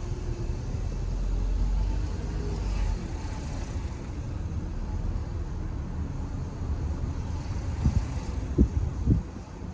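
Car driving: a steady low rumble of road and engine noise, with a few short low thumps about eight to nine seconds in.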